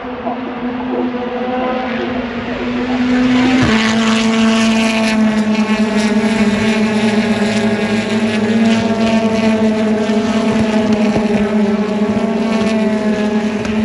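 Racing car engines running at high revs, several steady engine notes layered together; the sound gets louder and steps up in pitch about three and a half seconds in, then holds.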